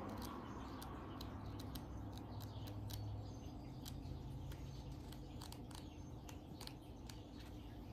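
Faint, irregular crisp ticks and rustles of paper pages being leafed through while searching an oracle-card guidebook, over a low steady hum.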